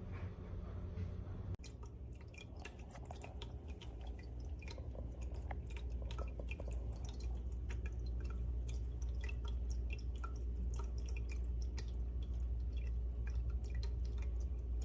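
Small indoor tabletop fountain with four cascading stone bowls, its water trickling and dripping from bowl to bowl in quick, irregular little splashes over a steady low hum.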